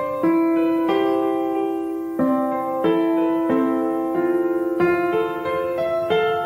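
Background music on piano, with a bright electric-piano tone: single notes and chords struck about once a second and left to ring.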